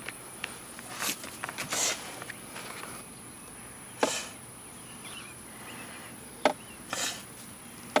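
Steady high-pitched drone of insects in the grass, with several short knocks and rustles scattered through it, the loudest about four seconds in and at the very end.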